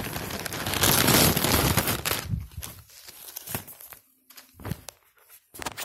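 Clear plastic packaging bag crinkling as a jersey is handled inside it: loud, dense rustling for about the first two seconds, then softer scattered rustles and clicks.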